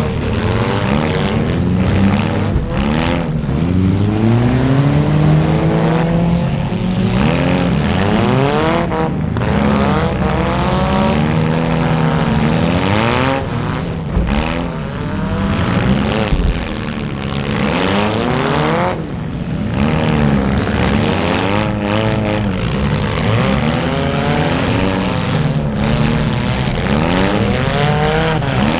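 Several small demolition-derby cars' engines revving up and down at once, loud and continuous, with the pitches of different engines rising and falling against each other.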